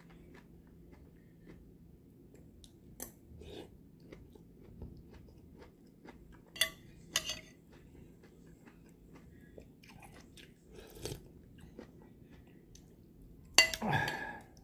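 Close-up chewing of juicy pomelo segments, with scattered light clicks and two sharper clinks of a metal spoon on a ceramic bowl about halfway through. A louder bump near the end.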